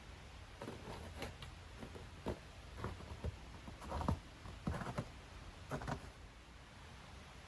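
Irregular soft knocks and rustles, about a dozen over several seconds and loudest around the middle, over a faint steady hiss.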